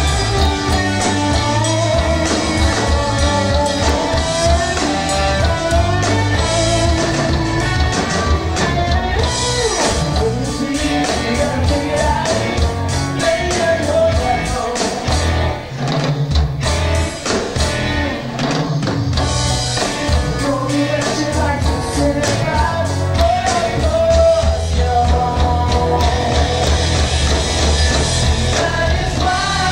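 Live rock band playing: electric guitar over a steady drum beat, with a singing voice.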